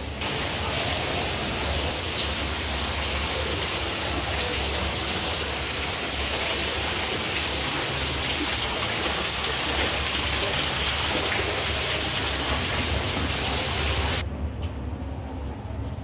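Water from an indoor waterfall feature falling like rain into a pond: a steady splashing hiss. It cuts off suddenly about two seconds before the end, leaving a quieter low background hum.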